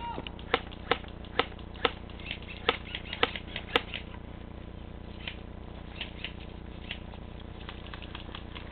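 Airsoft guns firing single shots: sharp cracks about twice a second for the first four seconds, then scattered fainter shots.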